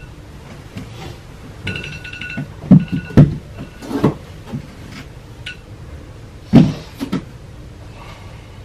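A phone alarm rings in short repeated chimes and stops a couple of seconds in. Then come several heavy rustles and thuds of bedding as a sleeper turns over and pushes himself up.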